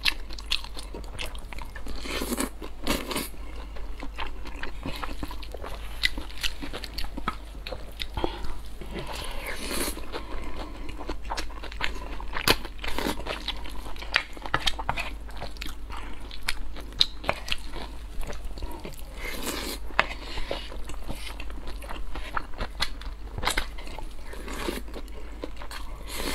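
Close-miked eating sounds: a person chewing mouthfuls of noodles and rice, with many irregular sharp, wet clicks.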